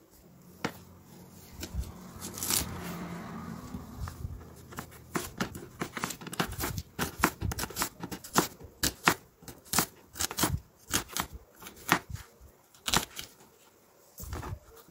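Kitchen knife chopping a red onion on a cutting board: a run of short sharp knocks, about three a second, after a few seconds of rustling scraping.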